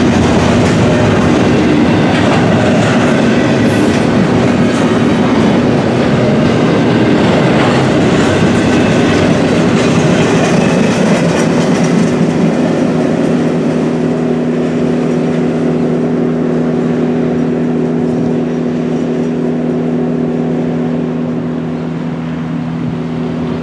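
Double-stack intermodal container cars rolling past on the rails, fading in the second half as the last car goes by and the train draws away.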